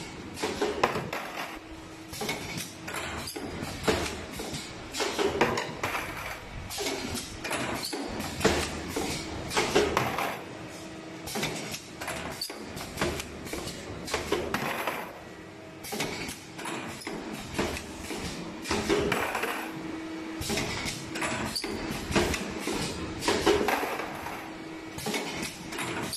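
Automatic wire ring-forming and butt-welding machine running through its cycle: wire feeding through the rollers, with a cluster of metallic clanks from the clamps and cutter every few seconds. A short steady hum comes back about every five seconds.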